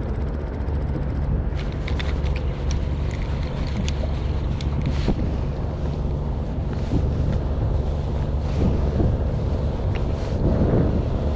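Fishing boat's engine running steadily, with wind buffeting the microphone and a scatter of small clicks and ticks in the first half.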